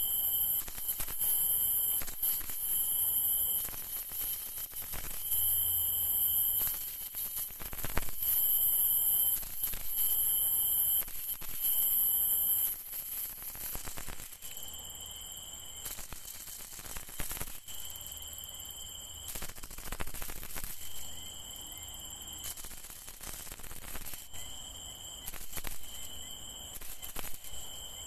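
A shaken tok rat-call lure of the melon-seed type, giving high-pitched squeals in bursts of about a second, one every second or two, to draw rats in for shooting. The bursts are louder in the first half and softer later.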